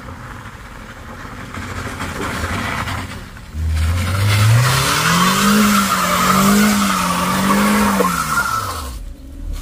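Small MPV's engine revving hard up a steep climb: the engine note rises sharply a few seconds in, holds high with wavering revs, then drops away near the end. Over it runs a loud hiss of tyres scrabbling for grip on the loose, slippery surface.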